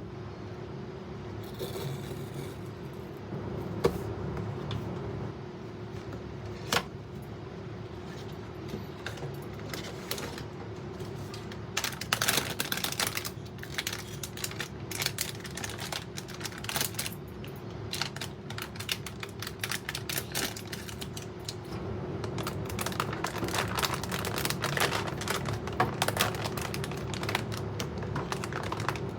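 Blind box packaging being handled and opened: irregular crackling and clicking of plastic wrapping and cardboard, in two busier spells, over a steady low hum.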